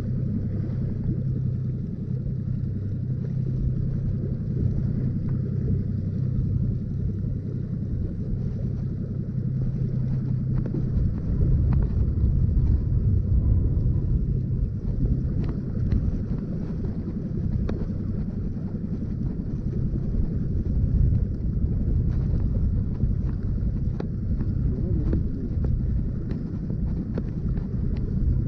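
Boat motor running steadily under way, with wind buffeting the microphone; the motor gets a little louder about twelve seconds in.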